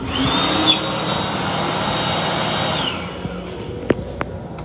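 Vacuum flush of an M7 commuter railcar's toilet: a loud rushing hiss with a high whine that rises in at the start, holds steady, then drops away as the flush cuts off after about three seconds. A couple of faint clicks follow.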